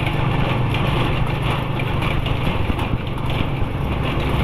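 A motor vehicle driving along: a steady low engine drone under even road noise.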